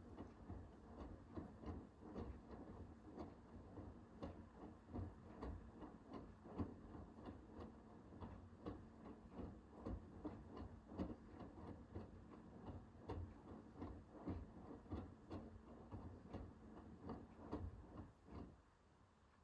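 Hoover H-WASH 500 washing machine drum turning mid-cycle: a low motor hum with irregular clicks and knocks from the tumbling wet load. It stops suddenly near the end as the drum pauses.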